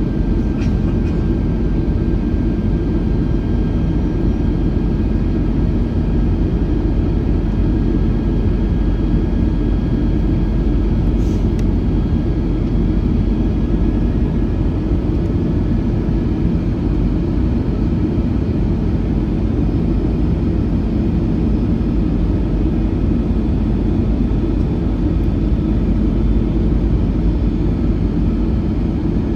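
Steady low rumble and engine hum inside the cabin of an Airbus A321-211 with CFM56 turbofans. A faint high whine runs alongside and fades out about halfway through.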